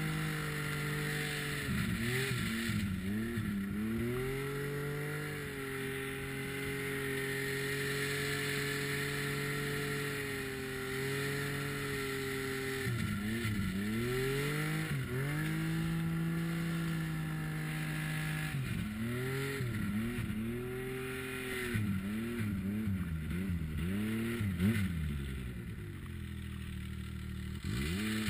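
Snowmobile engine revving up and easing off as it pushes through deep powder snow. The pitch holds steady for several seconds, then comes in a run of quick revs and drops lower near the end.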